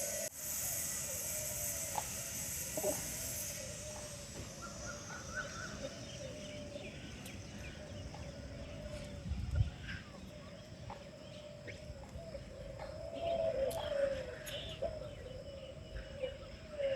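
Outdoor park ambience with birds chirping and calling over a low, steady background rumble, and a single thump about halfway through.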